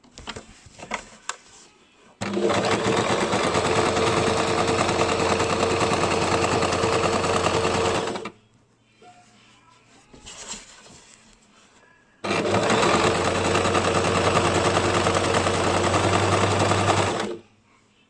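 Basic electric sewing machine stitching in two steady runs of about six and five seconds, with a pause between them. A few short clicks come just before the first run.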